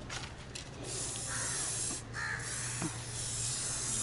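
Aerosol spray-paint can hissing in two bursts of about a second each, with a short pause between them.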